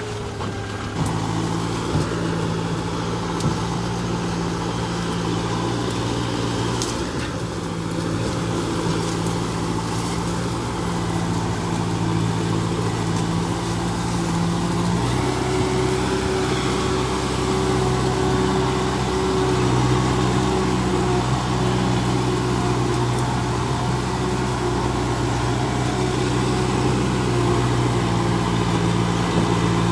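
Small farm tractor's engine running steadily while it tows a trailer through a grassy field. Its note shifts about halfway through.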